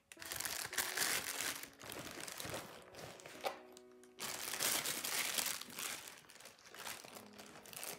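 Clear plastic packaging bag crinkling as it is handled and pulled open, in two long bouts: one in the first two seconds and another from about four seconds in.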